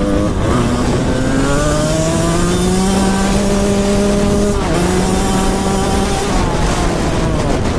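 Dirt bike engine pulling hard, its pitch climbing steadily for about four seconds, dipping suddenly about four and a half seconds in, then holding before easing off near six seconds. A steady rushing wind noise runs underneath.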